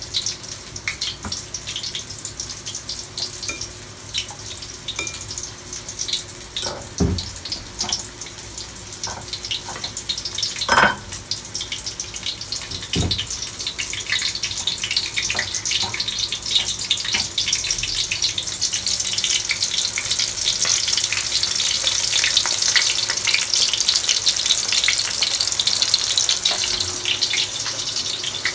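Breaded chicken deep-frying in hot oil in a wok, a dense crackling sizzle that grows louder in the second half. A few sharp knocks stand out about a third of the way in.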